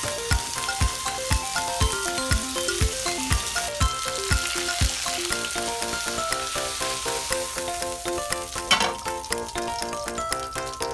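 Chicken pieces sizzling as they fry in a pan, under background music with a steady beat that drops out about halfway through.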